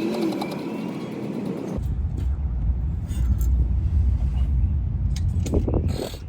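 A car running, a steady low rumble that grows stronger about two seconds in, with a few light clicks near the end.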